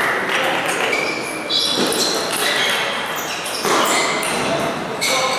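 Table tennis hall with several matches going: table tennis balls clicking off tables and bats at irregular moments, over voices talking in the hall.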